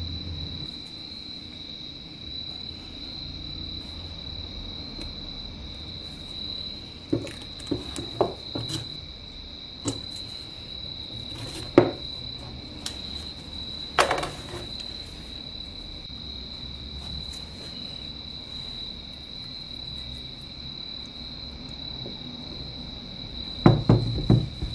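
Small tools and parts click and knock on a wooden workbench as they are handled, a few times in the middle and in a quick loud cluster near the end. A steady high-pitched tone hangs behind them throughout.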